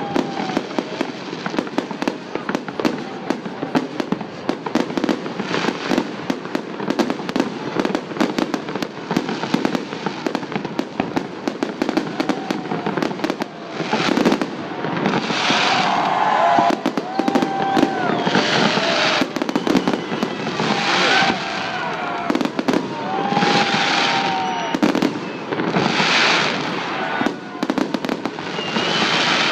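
Fireworks salute: dense crackling throughout, and from about halfway on, hissing bursts roughly every two seconds as shells go off. Voices of onlookers are heard between the bursts.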